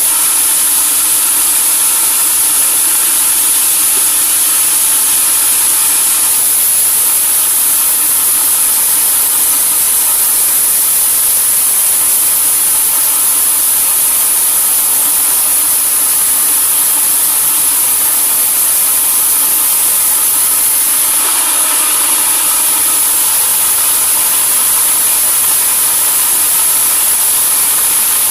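Sawmill saw and machinery running steadily and loudly, a continuous mechanical drone with a high hiss, its tone shifting slightly about six seconds in and again near twenty-one seconds.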